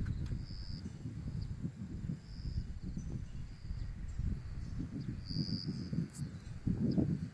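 Outdoor rural ambience: a low, uneven rumble, with short high chirps recurring every second or so.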